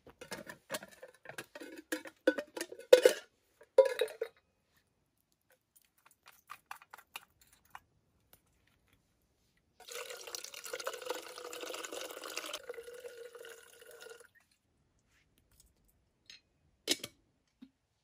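Metal clinks and clatter of a small camping kettle being handled, loudest about three seconds in, then water poured from an aluminium bottle into the metal kettle pot, a steady pour of about four seconds. A few light clicks follow near the end.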